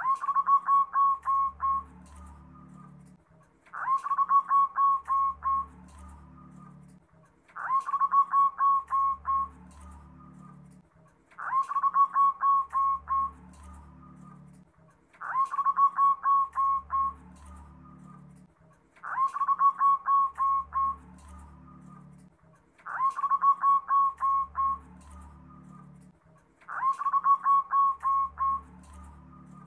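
Zebra dove (perkutut), a local strain, singing its cooing song. The same phrase, a rising start and then a quick run of about seven staccato notes, repeats about every four seconds, eight times.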